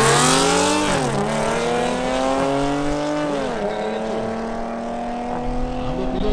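Supercharged Audi S4 and Mercedes CLA 45 AMG accelerating flat out from a drag-race launch. The engine note climbs, drops sharply at an upshift about a second in, climbs again, drops at another upshift about three and a half seconds in, then keeps rising.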